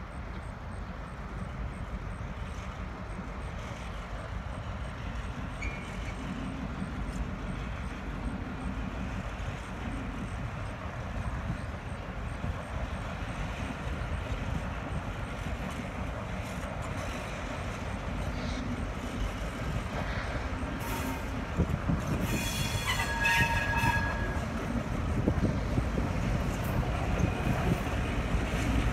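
EMD GP38-2 diesel-electric locomotive, with its 16-cylinder two-stroke EMD 645 engine, rumbling at low speed as it pulls empty hopper cars, growing louder as it nears. About three-quarters of the way through come brief high-pitched wheel squeals and a few clanks from the cars.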